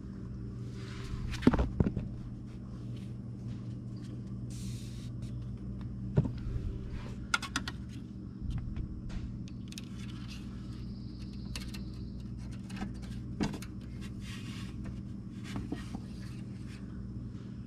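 Oil dipstick being pulled from its tube on the Kawasaki Mule Pro FXT engine and handled: scattered light clicks, scrapes and short metal rattles, the loudest a cluster about a second and a half in, over a steady low hum.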